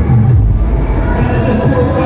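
Electronic dance music played loud through a large PA system with heavy sub-bass. The steady kick beat stops about half a second in, and a held bass note carries on.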